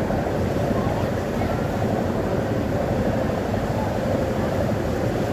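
Steady drone of a ferry under way: engine hum mixed with rushing water and wind noise, unchanging in level.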